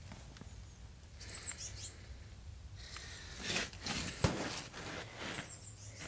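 Footsteps on snow and ice, with a sharp crack about four seconds in. A few faint, high bird chirps come twice, about a second in and again near the end.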